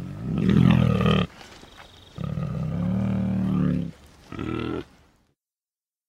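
Sound-effect vocalisations made for the extinct short-faced bear (Arctodus): three deep roars, the first about a second long, the second longer and starting about two seconds in, and a short third one near the end.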